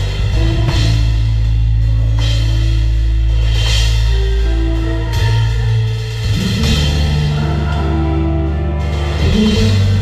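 A salsa band playing live, led by timbales struck with sticks and cymbal crashes every second or so over long held bass notes that change pitch a couple of times, with keyboard lines above.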